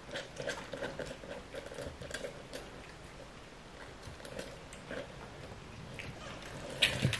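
A cat eating wet food from a bowl: quick, repeated wet chewing and smacking sounds, with a louder knock near the end.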